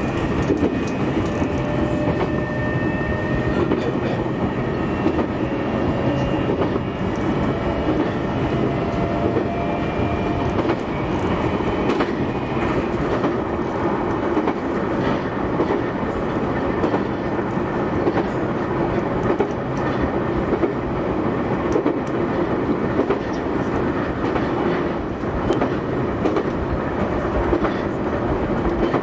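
JR East E131 series 600 subseries electric train running at speed, heard from the front car: a steady rolling rumble with wheel clicks over rail joints. Faint whining tones sound through the first ten seconds or so.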